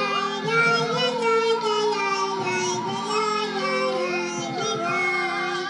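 Music with singing: a high, wavering vocal melody over held chords.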